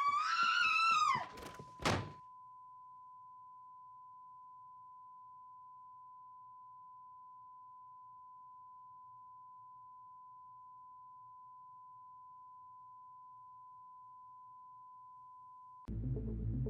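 A high-pitched wailing cry bends up and down for about a second, and a single thump follows about two seconds in. A faint, steady pure tone, like a test-tone beep, then holds on one pitch for over ten seconds, until a low music drone comes in near the end.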